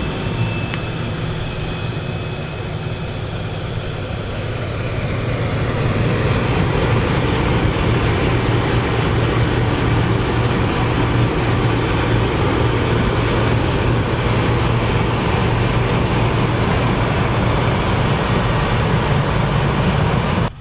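Claas Lexion 780TT combine harvester running under load while harvesting barley: a loud, steady drone of engine and threshing machinery with a strong low hum. It grows louder over the first several seconds, then holds level.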